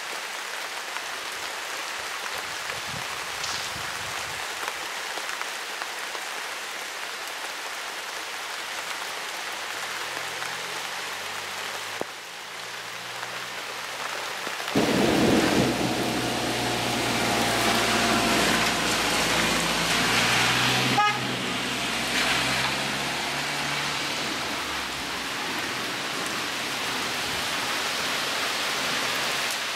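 Heavy rain falling steadily on flooded ground. About halfway through, a loud, long rumble of thunder sets in, the loudest sound here, and dies down over roughly ten seconds.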